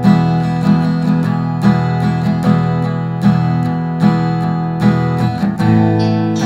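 Instrumental background music, with notes struck every second or less.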